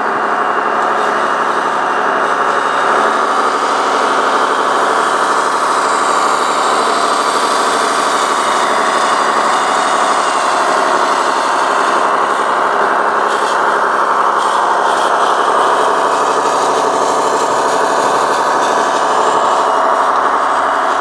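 Radio-controlled model truck running steadily with an engine-like sound.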